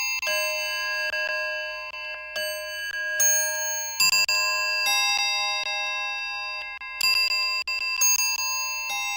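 Clock chiming: a run of bell-like chime notes, struck about every second or two, each ringing on and overlapping the next, with faint ticks between the strikes.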